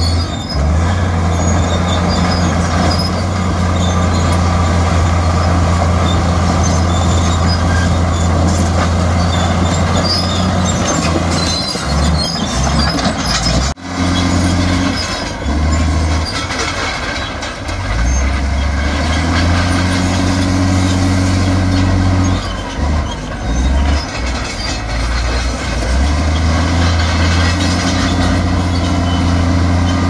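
Heavy diesel engine of earthmoving machinery working under changing load. Its note steps up and down several times, and it breaks off sharply for a moment about halfway through.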